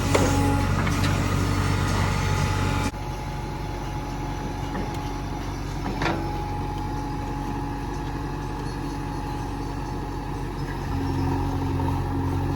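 JCB 3DX backhoe loader's diesel engine running steadily, with a couple of sharp metallic knocks. The engine is louder at first, drops suddenly about three seconds in, and rises again near the end.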